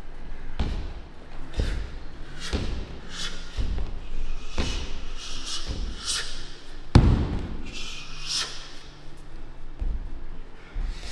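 Repeated thuds about once a second, from martial arts students working partner drills: strikes and impacts on bodies or pads. The loudest thud comes about seven seconds in.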